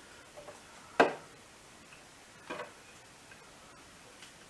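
Hand tools or small parts clicking and knocking while being handled during work on a motorcycle. One sharp click about a second in is the loudest, a second one comes about two and a half seconds in, and there are a few faint taps.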